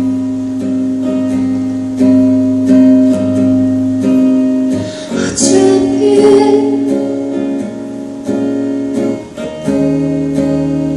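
Acoustic guitar strumming a slow chordal accompaniment, with a woman's singing voice coming in briefly about halfway through.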